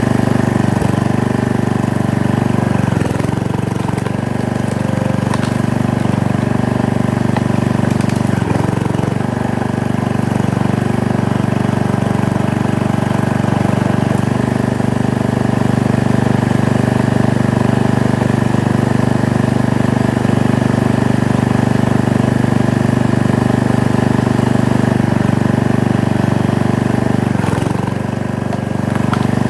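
Small gasoline engine running steadily at a constant speed, its note dipping briefly three times.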